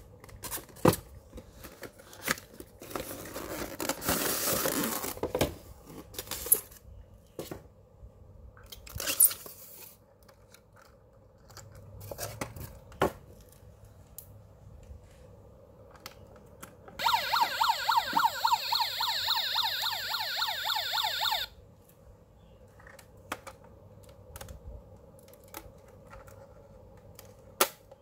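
Cardboard-and-plastic packaging rustling and scattered clicks as a 1:24 diecast IVECO police van is unboxed, then, about 17 s in, the model's built-in sound module plays a tinny electronic police siren, warbling rapidly for about four seconds before cutting off abruptly.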